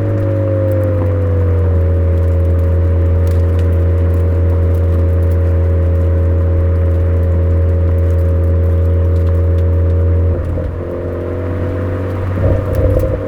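Suzuki Swift Sport ZC33S's 1.4-litre turbocharged four-cylinder running through a Fujitsubo aftermarket exhaust, holding a steady drone while descending a mountain road. The pitch eases down slightly in the first couple of seconds. The note breaks up briefly about ten seconds in and again near the end.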